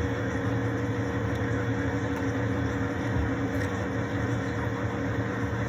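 A steady machine hum: a low drone with a few held tones under an even whirring noise, unchanging throughout.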